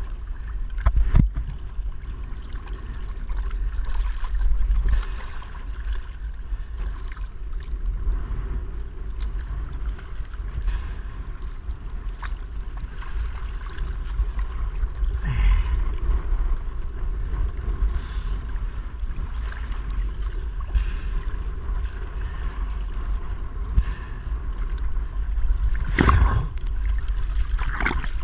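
Choppy sea water sloshing and splashing around a windsurf board and its sail lying in the water, with wind rumbling on the microphone. A few sharper splashes stand out, one about a second in, one mid-way and one near the end.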